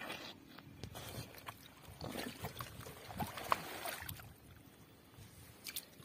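Hands splashing and scooping in shallow muddy water, with wet mud sloshing in irregular bursts that are busiest around the middle.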